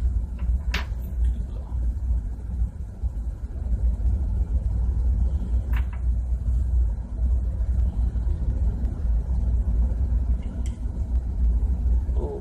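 Steady low rumble of ship's engine-room machinery, with a few light clicks from the lubricator's metal parts being handled.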